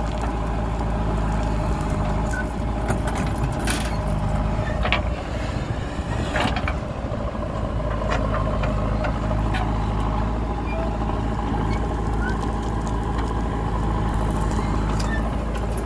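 JCB backhoe loader's diesel engine running steadily under load while the rear backhoe digs earth and swings to tip it into a tractor trolley, with a few short knocks in the first half.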